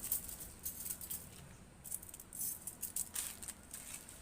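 Light, scattered clicking and rattling from wires and small lock parts being handled on a table, a handful of short clicks spread over a few seconds.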